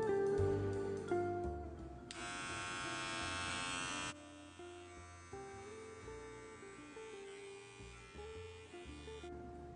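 A Wahl electric hair clipper fitted with an Andis cutting blade is switched on and buzzes for about two seconds, then cuts off suddenly, over background guitar music.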